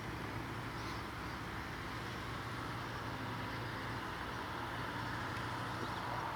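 Fire engine (HLF) heard from inside the cab: a steady, even engine rumble.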